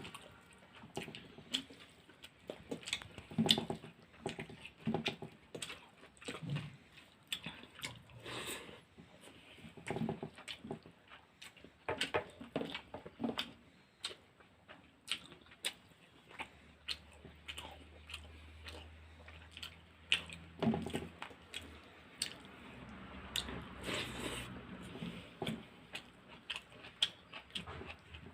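A person chewing and eating a meal of rice and greens, with repeated wet mouth smacks and bites and the odd crunch.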